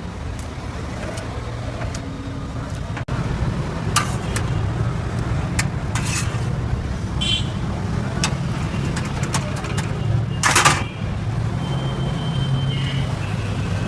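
Steady low rumble of road traffic, with scattered clicks and knocks and a brief loud noisy burst about ten seconds in.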